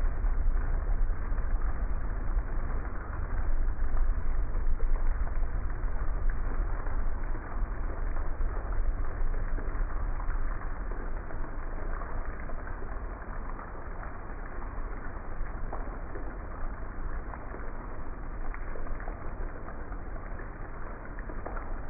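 Heavy rain pouring steadily: a dense hiss full of scattered drop patters over a low rumble. It grows a little softer after the first several seconds.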